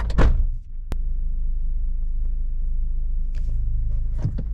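Vehicle engine idling, heard from inside the cab as a steady low rumble, with a single sharp click about a second in.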